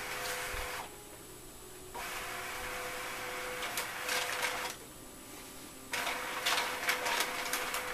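Brother MFC multifunction printer running in stretches of mechanical whirring, stopping twice for about a second, with bursts of sharp clicks and taps in the second half.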